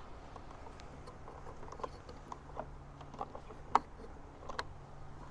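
Scattered small clicks and taps of wires being worked out of the terminal block of an EV charger, with one sharper click a little before four seconds in. A faint steady low hum runs underneath from about half a second in.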